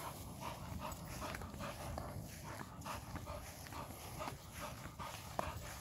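A pit bull panting, short breaths about three a second, over low rustling and handling noise.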